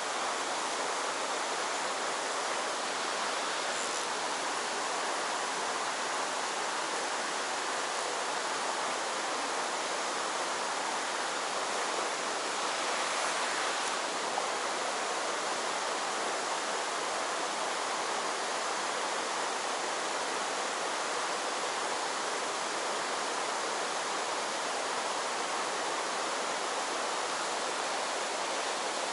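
Mountain stream rushing steadily over rocks and riffles, the water running high after heavy rain.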